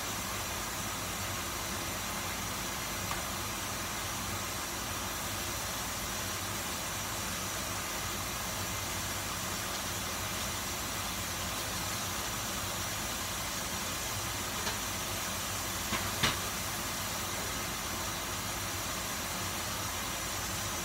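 A fan running steadily, an even hiss with no change in pitch, with a few light clicks about three quarters of the way through.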